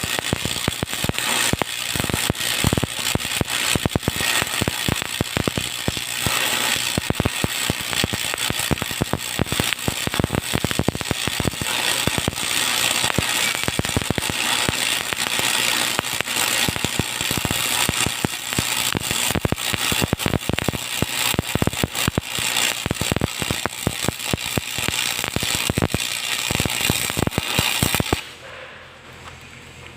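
Electric arc welding: a dense, steady crackling and sputtering of the welding arc, which cuts off suddenly about 28 seconds in as the arc is broken.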